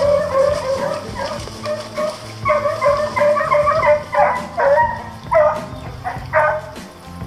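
A pack of Beagle Harrier hounds baying in chorus, long drawn-out bays overlapping at first, then several shorter separate bays that drop in pitch: hounds in cry on the trail of a wild boar.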